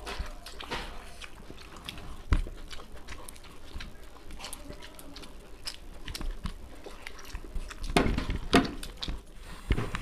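Two people eating fried rice and noodles with their fingers: close chewing and small wet mouth clicks mixed with fingers working the food on the plates. A sharp click comes about two seconds in, and there are louder sounds near the end.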